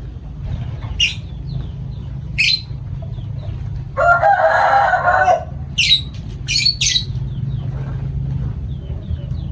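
Lovebirds calling: about five short, sharp high-pitched shrieks and, near the middle, a louder, lower call of about a second and a half, over a steady low hum.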